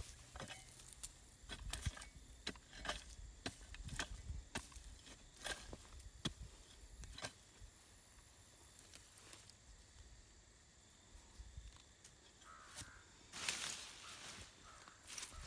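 Scattered crackling clicks and rustling, with a louder burst of rustle about thirteen seconds in.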